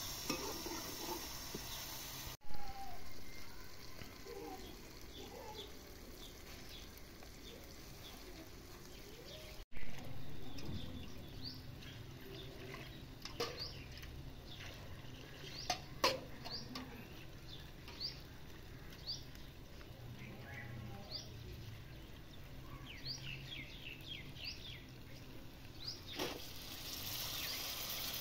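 Small birds chirping in short rising calls scattered through, with a few sharp knocks and two brief louder thumps about two and a half and ten seconds in. A soft sizzle of onions and tomatoes frying in an aluminium karahi over a wood fire is heard at the start and again near the end.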